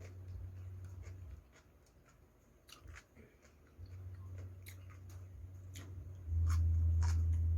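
Chewing and small mouth and utensil clicks close to the microphone. Under them runs a low hum that drops away for a couple of seconds around the middle and returns louder near the end.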